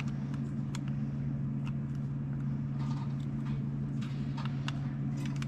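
Plastic Lego bricks clicking and tapping as pieces are handled and pressed together, a scattering of short sharp clicks over a steady low hum.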